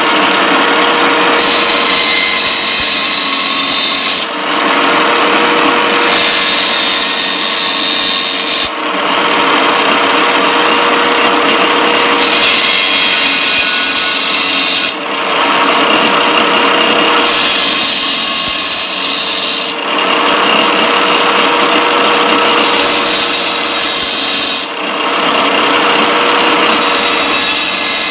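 Small tile saw's motor running with a steady hum while carbide table-saw blade teeth are pressed into its spinning diamond wheel to sharpen them. It gives a harsh grind, two to three seconds at a time, about six passes with short breaks between as the blade is turned to the next tooth.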